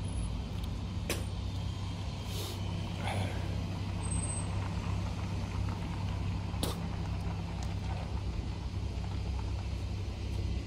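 A vehicle engine's steady low hum, with a few faint clicks.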